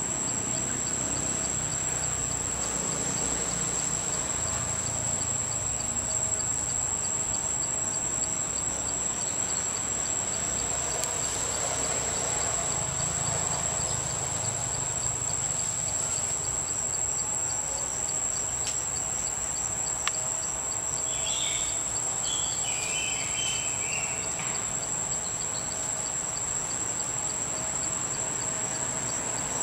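Forest insects keep up a steady high-pitched drone, with a faint regular pulsing beneath it. A few short chirps come about two-thirds of the way through.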